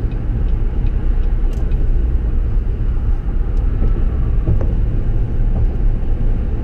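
Steady low rumble of road and engine noise heard inside a car's cabin at highway speed.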